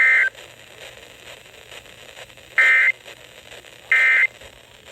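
Emergency Alert System digital data bursts: three short, harsh two-tone electronic screeches over a radio broadcast. They come at the very start, about 2.6 seconds in and about 4 seconds in, marking the end of the tornado watch statement.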